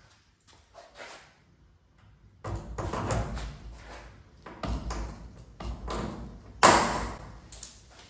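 Sheet of aluminium diamond-plate cladding rattling and wobbling in two stretches as it is pressed into place against the trailer body, with one sharp, ringing crack near the end.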